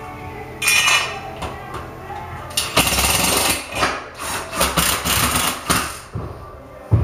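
Cordless drill driving screws into a ceiling register grille, running in several short bursts.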